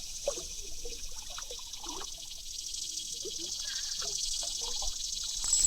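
Creek ambience: water trickling and splashing over rocks in short soft bursts, under a steady high-pitched insect drone.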